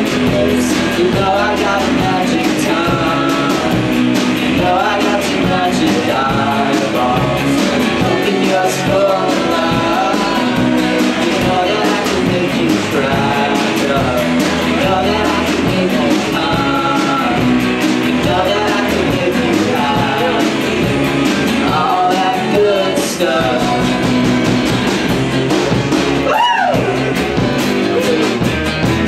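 Live rock-and-roll band playing a song, with acoustic guitar strumming and a singing voice over the band.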